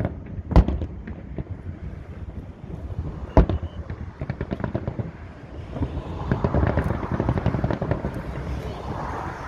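Fireworks exploding: sharp booms about half a second in and, loudest, at about three and a half seconds, among many smaller pops and crackles.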